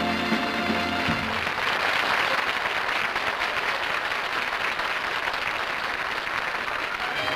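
A sung jingle with orchestra ends on a held chord about a second in, followed by a studio audience applauding steadily.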